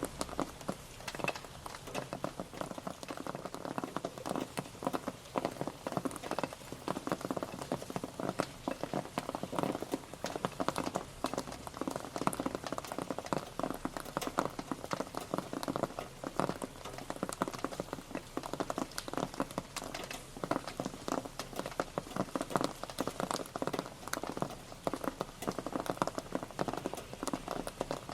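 Rain pattering steadily, a dense spray of individual drops striking a hard surface.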